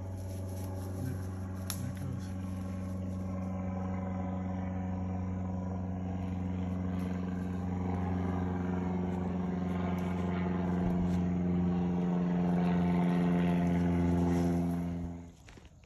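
Propeller airplane flying over, a steady low drone that slowly grows louder and then cuts off suddenly near the end.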